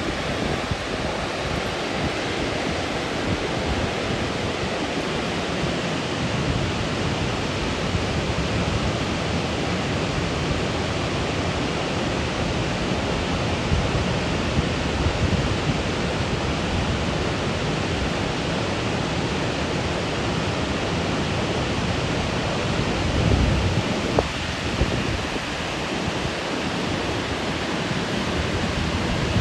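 Steady rushing of Burney Falls, a 129-foot waterfall, pouring into its basin. A few low gusts of wind hit the microphone, the clearest about three quarters of the way through and again near the end.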